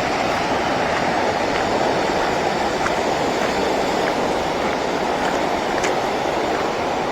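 Waterfall's falling water: a steady, even rush of water noise.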